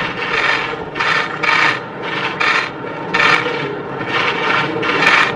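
Many press camera shutters firing in quick rattling bursts, several cameras overlapping, about two or three bursts a second.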